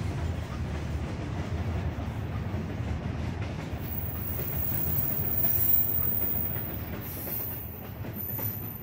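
Open-box freight wagons of a goods train rolling past: a steady heavy rumble with the wheels clattering over the rail joints, loudest a little past halfway and easing slightly as the brake van at the tail goes by near the end.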